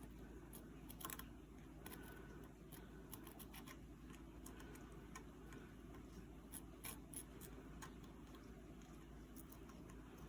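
Faint scraping and small ticks of a hand tool picking dried leather strap residue off a metal watch case, in irregular short strokes over a low steady hum.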